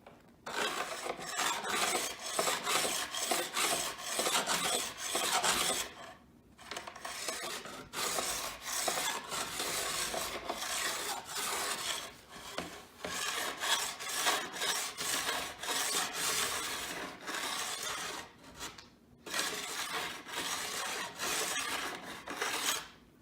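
Coarse-grit insert of a Dakine edge tuner tool rasping along a snowboard's steel edge in repeated strokes, sharpening it, with two brief pauses about six and nineteen seconds in.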